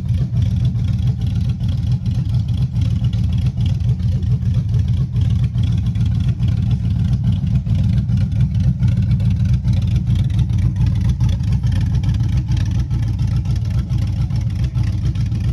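Rebuilt GM 5.3 L V8 with a Summit stage 1 camshaft idling steadily.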